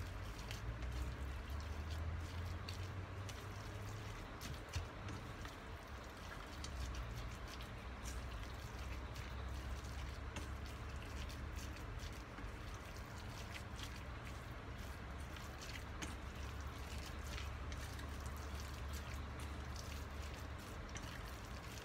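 Silicone spatula mixing wet, soy-sauce-seasoned ground meat in a stainless steel bowl: soft squelching with many small clicks and scrapes against the bowl, over a steady low rumble.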